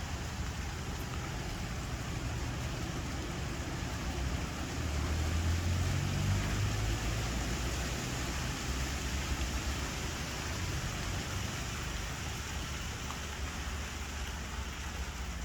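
Gusty wind through ice-coated trees in an ice storm, over a steady hiss of freezing rain. A low wind rumble on the microphone swells about five seconds in, then eases.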